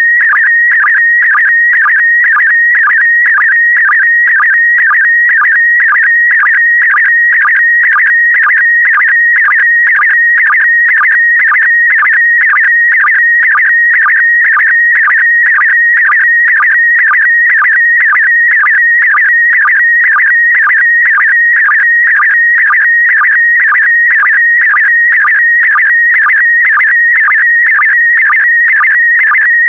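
PD120 slow-scan television (SSTV) signal: a loud, high warbling tone that shifts in pitch as it carries the picture, broken by a short lower blip about twice a second as each pair of image lines is sent.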